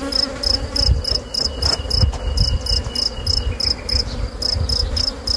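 An insect chirping in a steady rhythm, about three short high chirps a second, over a low rumble.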